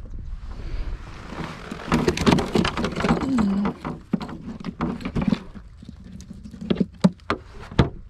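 Handling knocks and clicks on a plastic fishing kayak with water patter, several sharp separate knocks in the second half, after a short low pitched, voice-like sound about two seconds in.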